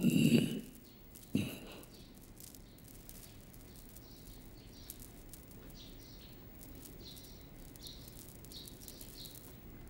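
Faint birds chirping in short, irregular calls over a low steady background hiss. A brief loud sound comes at the very start, and a single knock follows about a second and a half in.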